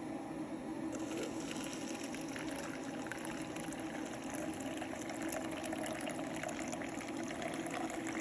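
Water being heated, bubbling and crackling over a steady hiss from the heat source.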